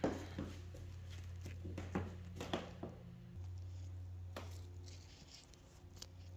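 A few light footsteps and knocks on bare pine floorboards over a low steady hum.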